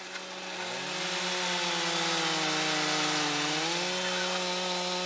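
Chainsaw running at speed as it cuts down into a block of wood. Its pitch sinks slowly, rises again about three and a half seconds in, and stays steady after that.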